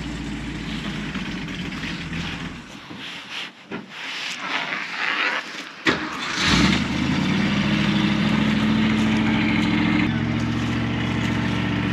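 A car engine is started. A sharp click comes about six seconds in, then a short loud burst as the engine catches, and it settles into a steady, even idle. Before that, a low steady hum fades out about three seconds in.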